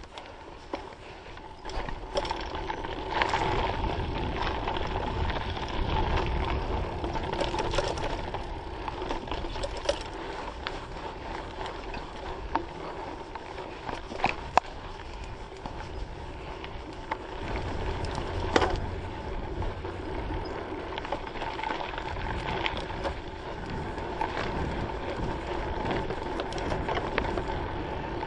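Mountain bike ridden along a dirt singletrack, heard from a camera mounted on the bike or rider. Tyres rolling on dirt and wind rumbling on the microphone run throughout, with the bike rattling over rough ground and a few sharp knocks, the loudest about halfway and two thirds through.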